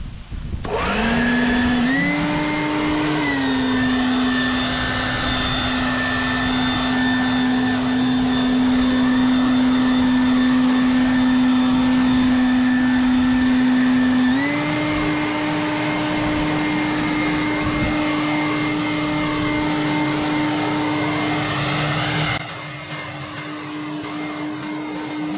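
Leaf blower spinning up about a second in and then running steadily with a constant whine, its pitch stepping up a little about halfway through. It gets somewhat quieter near the end.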